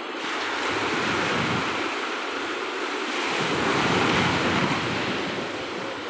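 Sea surf breaking and washing up the beach as a steady rushing hiss that swells twice, once at the start and louder about three and a half seconds in. Wind rumbles on the microphone.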